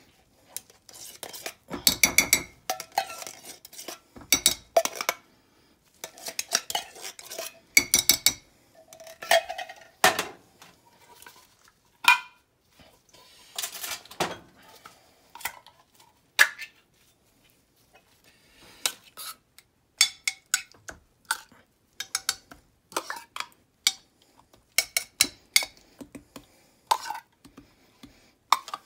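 Irregular clinks, knocks and scrapes of an opened tin can against a ceramic slow-cooker crock as thick condensed cream of chicken soup is emptied out and spread over the vegetables.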